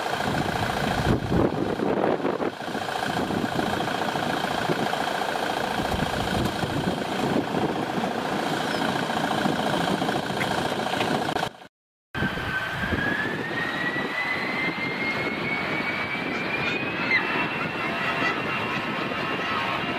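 Airbus A319-111's CFM56 jet engines at takeoff thrust, a steady heavy engine noise with a constant whine, as the airliner lifts off and climbs away. About halfway through it cuts off abruptly, and after a brief silence a different jet aircraft sound starts with a whine that rises steadily in pitch.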